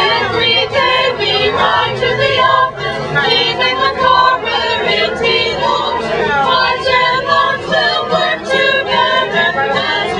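A vocal group singing a song together in harmony, several voices at once.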